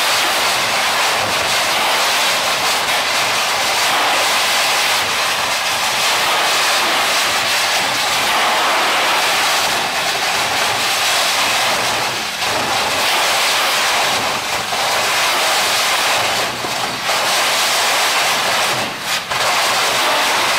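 Hydrodemolition robot's ultra-high-pressure water jet blasting away reinforced concrete: a loud, steady hiss of water and spray, with a few brief drops in level in the second half.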